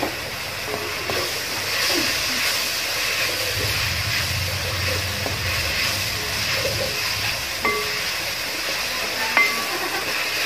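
Sliced onions, green chillies and curry leaves sizzling steadily in hot coconut oil in an aluminium kadai as they are sautéed and stirred with a wooden spatula, with a couple of short knocks of the spatula against the pan near the end.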